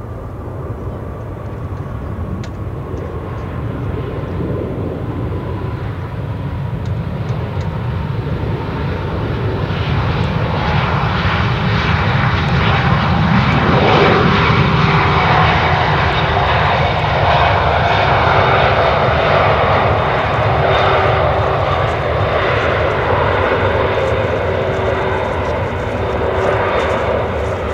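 Airbus ACJ320 twin jet engines running at taxi power, a roar with a whine on top that grows louder over the first half, peaks about halfway through and stays loud as the aircraft passes and turns.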